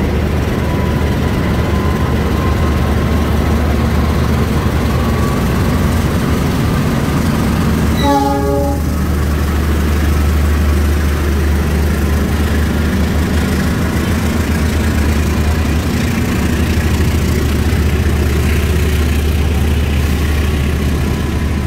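Diesel engine of a KAI CC206 diesel-electric locomotive running with a steady low drone, and one short train horn blast about eight seconds in.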